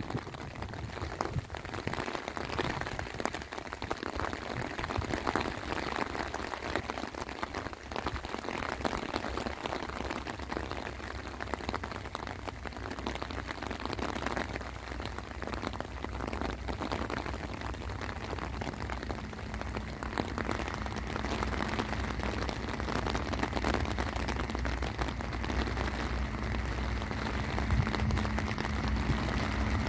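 Steady rain, with a fine patter of drops close by. Under it runs the low rumble of a diesel locomotive hauling coal wagons, and a steady engine tone grows audible about two-thirds of the way through as the locomotive comes closer.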